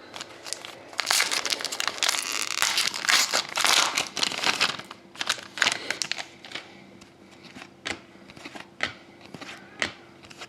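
Hockey card pack wrapper crinkling and tearing as it is handled and opened, dense for the first few seconds, followed by scattered light clicks and snaps of cards and packaging being handled.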